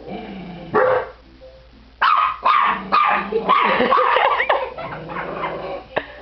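Dogs squabbling: a sharp bark just under a second in, then from about two seconds a loud run of barks and high yaps. A low growl sits under the quieter stretches, the old Yorkie growling back at the puppy.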